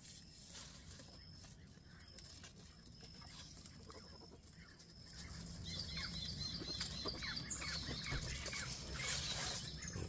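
Guinea pigs rustling and chewing among cut grass leaves in their hutch, with a quick run of high squeaks about six seconds in. A small bird chirps a repeated short note in the background.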